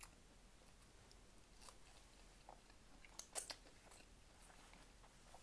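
Faint chewing of a sauce-dipped french fry: a few soft, wet mouth clicks, most of them about three and a half seconds in, over a very quiet room.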